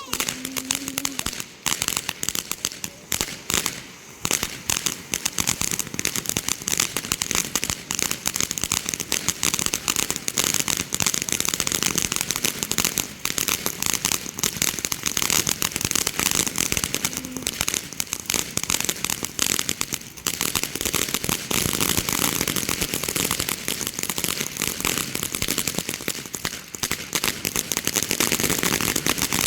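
Firecrackers going off in a dense, continuous rapid crackle of pops with no break.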